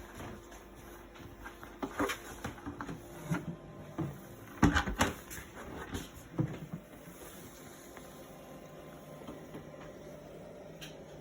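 Knocks and clatter of a plastic compressor car fridge being handled, its lid opened and shut, with the loudest bangs about five seconds in, then a steady low hum.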